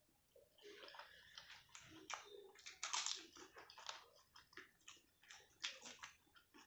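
Close-miked eating sounds of a hand-eaten meal of rice and dal: chewing and wet mouth clicks, heard as a run of quick crackles, thickest about three seconds in and again near six.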